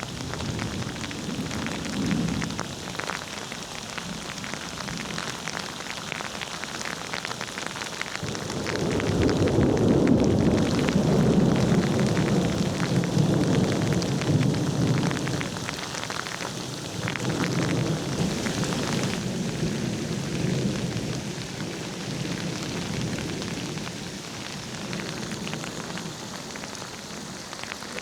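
Steady rain with rolling thunder. A long, low rumble builds about a third of the way in, is loudest for several seconds, then dies away in weaker waves while the rain hisses on.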